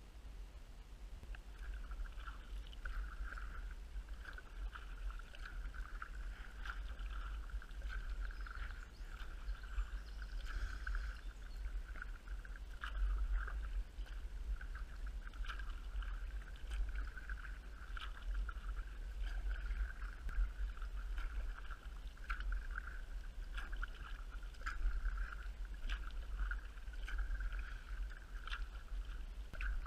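Kayak being paddled on calm water: water trickling and lapping along the hull, with small irregular splashes and drips from the paddle over a steady low rumble.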